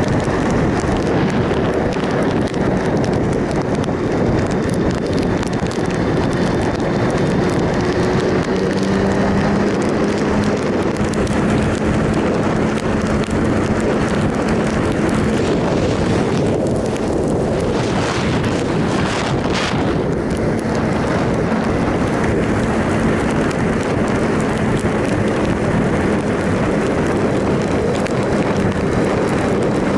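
Triumph Sprint ST 1050's three-cylinder engine running at a steady road speed under heavy wind rush on the microphone, its pitch rising a little about eight seconds in. A few short rushes of hiss come between about 17 and 20 seconds in.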